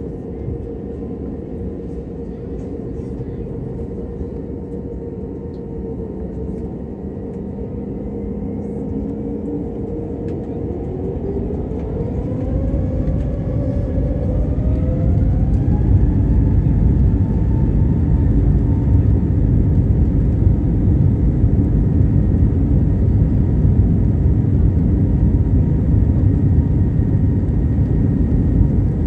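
Airliner jet engines heard from inside the cabin, spooling up from a steady idle to takeoff thrust: a whine rises in pitch about a third of the way in while the noise grows louder. The loud, steady roar and rumble of the takeoff roll follow as the plane accelerates down the runway.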